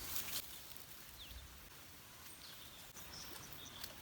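Faint outdoor ambience with a few brief high chirps scattered through it.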